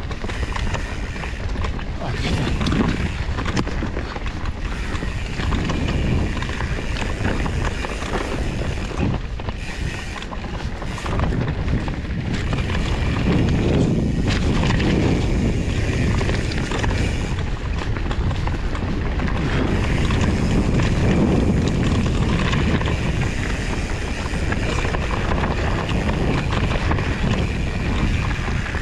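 Wind buffeting the microphone over the continuous rumble of a Trek Farley fat bike being ridden on a trail, with many short knocks and rattles from the bike.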